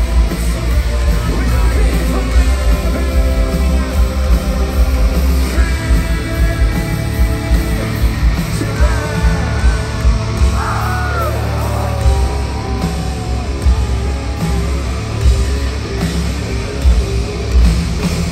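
A live heavy rock band playing at full volume, with pounding drums and dense distorted guitars and bass. About nine seconds in, a high lead line bends up and down.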